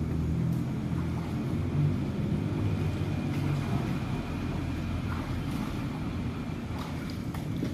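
A motor running steadily with a low hum, and a few faint ticks over it.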